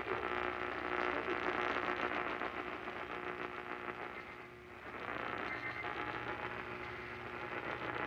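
AM radio static from a small weather alert radio's speaker: a steady hiss of noise with faint hum tones in it, dropping away briefly about halfway through and then coming back.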